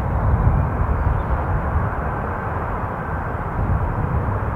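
Airbus A320's twin jet engines on its takeoff roll down the runway, a steady deep rumble with a rushing roar, easing slightly as it moves away.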